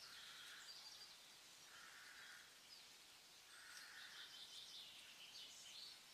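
Faint birdsong: three short, buzzy notes about two seconds apart, with higher twittering over them.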